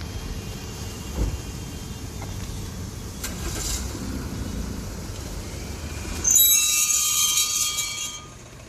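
Jeep Compass diesel rolling slowly with a low rumble, then about six seconds in a loud, high-pitched metallic squeal and scrape from the rear wheel brake for about two seconds. The noise comes from a stone lodged between the brake disc and its backing (anchor) plate.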